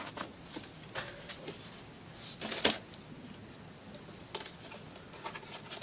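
Handling noise: light clicks and rustles as a folding drone and its parts are packed into a carrying case, the loudest a sharp knock about two and a half seconds in.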